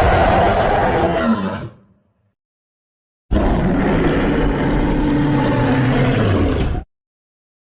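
Two roar sound effects, each with a low growling pitch: the first dies away about two seconds in, and after a short silence a second roar lasts about three and a half seconds and cuts off abruptly.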